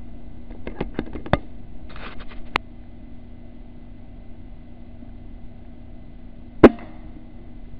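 Air rifle firing one sharp shot about two-thirds of the way in, at a rat held in the scope's crosshairs. Earlier, about a second in, comes a quick run of small mechanical clicks and a brief rustle, over a faint steady hum.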